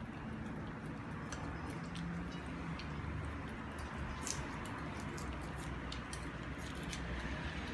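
Dog chewing and eating its food, a string of small wet clicks and crunches over a steady background hiss.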